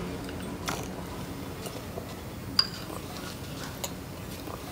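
A spoon clinking lightly against a bowl: a few small clicks roughly a second apart, with one brighter clink near the middle that rings briefly.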